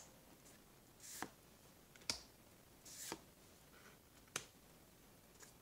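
Magic: The Gathering trading cards being handled one by one: about five short, soft snaps and slides, roughly one a second, as each card is moved through the stack, with near silence between.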